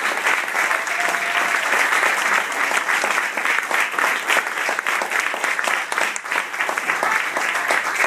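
A theatre audience applauding, many hands clapping in a dense, steady patter.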